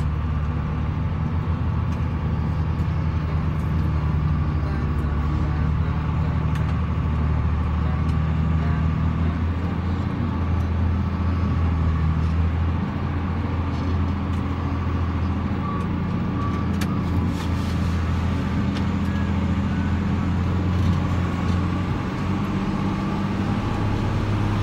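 Engine of a large truck heard from inside the cab while driving, a steady low running note that rises and falls a few times as the engine speed changes.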